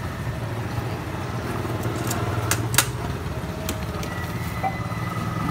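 A motorbike engine idling with a steady low hum, and two sharp clicks about two and a half seconds in.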